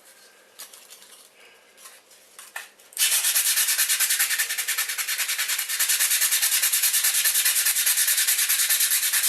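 Emery cloth rubbed over a copper-clad circuit board in quick, even, rhythmic strokes, polishing the copper bright before etching. It starts about three seconds in, after a few faint handling clicks.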